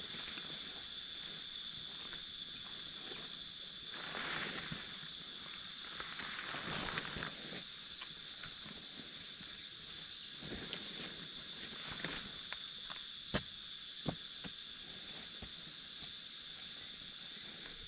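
Insect chorus: a steady, high-pitched drone. Soft rustling comes and goes, and there are two sharp clicks about two-thirds of the way through.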